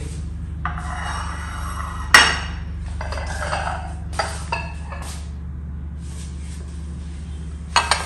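Wrapper paper rustling, then a sharp clink of a glass butter dish against a stone countertop about two seconds in, followed by a few lighter glass taps as the dish is handled, over a steady low hum.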